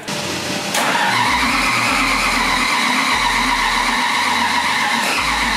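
2,100-horsepower 540 cubic inch big-block Chevrolet V8 running on methanol on an engine dyno. About a second in it comes up loud and holds at a steady high speed, with a high, ear-splitting whine over the engine noise.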